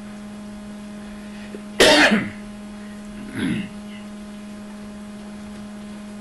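A man clears his throat with a sharp cough about two seconds in, then makes a shorter, softer throat sound a second later, over a steady electrical hum.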